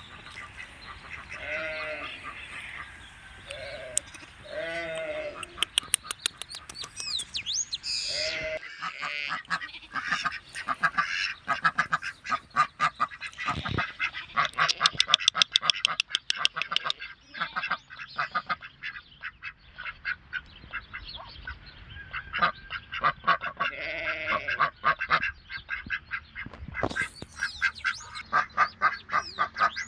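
Farmyard ducks quacking in quick, rapid runs, with longer honking calls from other poultry now and then.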